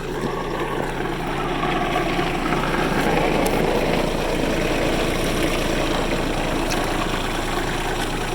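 An engine running steadily, getting a little louder over the first couple of seconds and then holding even.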